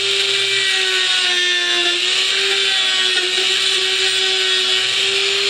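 Handheld rotary tool running at high speed, grinding the edge of a freshly cut notch in a plastic scooter cover to clean it up. A steady whine that sags slightly about two seconds in as the bit bites, over a grinding hiss.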